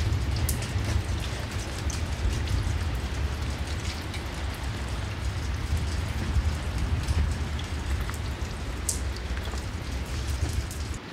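Outdoor weather noise: wind buffeting the microphone with a low rumble, under a steady rain-like hiss and scattered light ticks.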